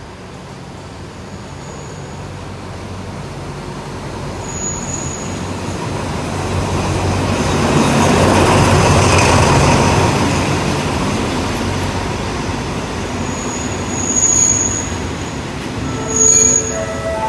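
Diesel locomotive approaching and passing close by, getting louder to a peak about 8 to 10 seconds in. The passenger carriages then roll past as the train pulls into the station, with short high-pitched wheel or brake squeals near the end.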